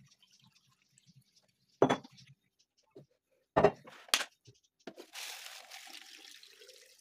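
Three sharp knocks as plastic pickle jars are handled on a stone countertop, then from about five seconds in, water pouring from a plastic jug into a jar packed with vegetables, topping up the pickle brine.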